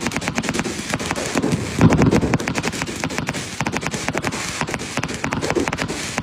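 Firecrackers going off in a rapid crackling string, many sharp pops a second, with a deeper, louder boom about two seconds in.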